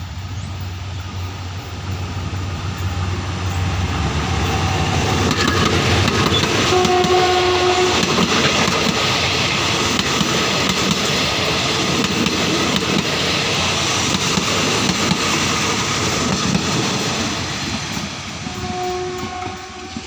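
A General Electric UM12C diesel locomotive hauling a passenger train through a station: the engine's low hum, then the loud rumble of the train and its wheels on the rails as it passes. Two short horn blasts sound, one about a third of the way in and one near the end.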